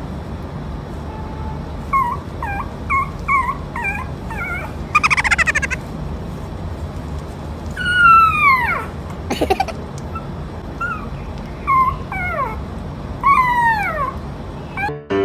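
A puppy whimpering in its sleep: a run of short high yips, a brief buzzy whine, then several long whines that fall in pitch, a few seconds apart.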